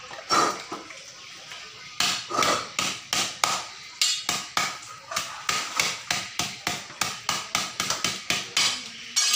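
A cleaver chopping a bundle of lemongrass stalks on a wooden chopping block. One chop comes near the start, then from about two seconds in a steady run of sharp chops follows, about three to four a second.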